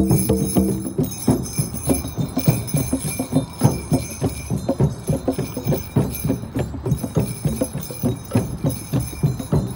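Drum circle: several hand drums beating a fast, steady rhythm of several strokes a second, with jingling bell percussion ringing over the beat. A short held tone sounds in the first second.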